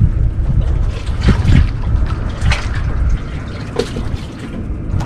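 Water sloshing and trickling, with irregular small splashes, over a steady low rumble.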